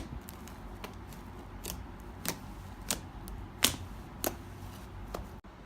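Fluffy slime being stretched and squished by hand, giving irregular sticky clicks and pops, about seven in all, a half second to a second apart.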